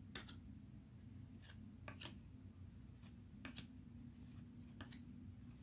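Faint, quick flicks of cardboard trading cards being slid off the front of a held stack and dropped onto a pile, about one a second, some in quick pairs.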